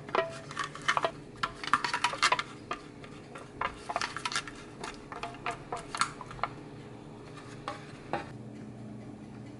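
Thin aluminium foil baking cups crinkling and clicking as one is handled and brushed inside with a silicone pastry brush to coat it with melted butter: a quick flurry of small clicks and rustles for about six seconds, then two sparse taps near the end.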